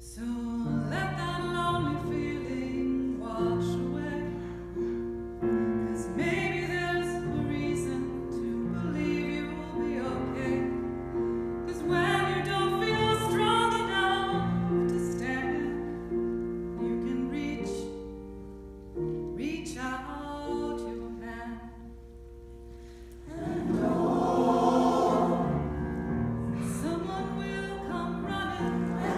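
A female soloist sings with a mixed choir holding long notes beneath her; the choir swells louder about 23 seconds in.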